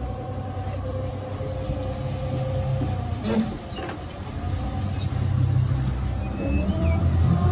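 Boat motor running at low speed, then picking up speed and rising in pitch near the end. A single knock about three seconds in.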